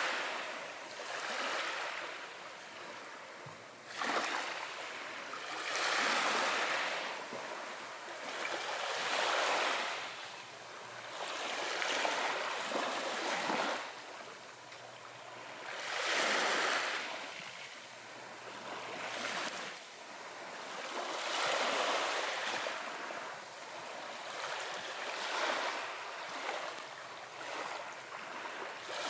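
Ocean surf: small waves washing in one after another, each a rush of water noise that swells and fades, about every three to five seconds.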